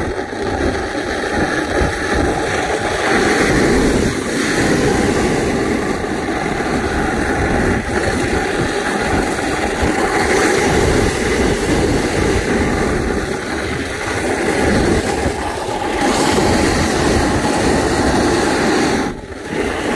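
Snowboard sliding and carving down groomed corduroy snow: a steady, rough scraping rumble of the board on the snow. It dips briefly about a second before the end.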